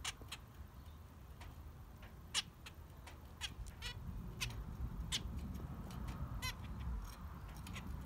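Zebra finches giving short nasal calls, a handful of single notes scattered through, the loudest about two and a half seconds in.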